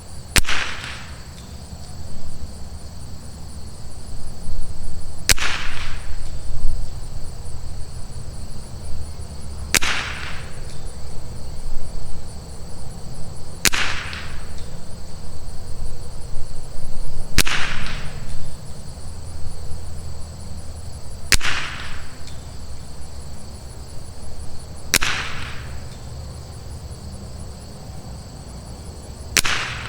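Rim-X .22LR rifle with a Douglas barrel firing single shots, eight in all, about one every four seconds, each followed by a short echo. A steady insect chorus sounds underneath.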